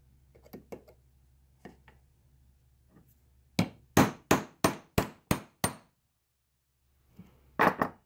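Hammer striking a small steel punch to drive the pin out of a bicycle chain link: seven sharp taps about three a second, then one more near the end.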